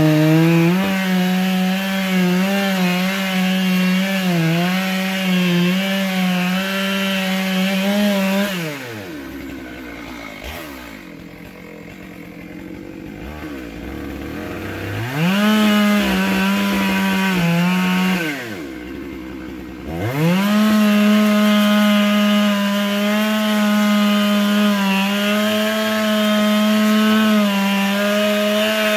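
Stihl MS 661 two-stroke chainsaw cutting into a large oak stump at full throttle. About eight seconds in the throttle is let off and the saw drops to idle. It revs back up for a few seconds and idles once more, then returns to full throttle and holds it steadily in the cut.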